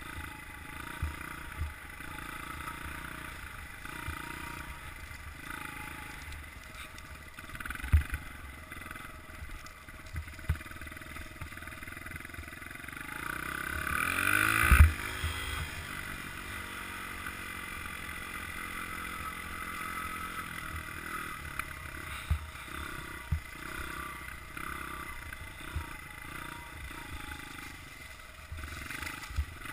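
Honda CRF100F dirt bike's small four-stroke single-cylinder engine running while ridden, building up to a loud rev about fourteen seconds in, then cutting back with the pitch falling away. Several sharp knocks stand out over it.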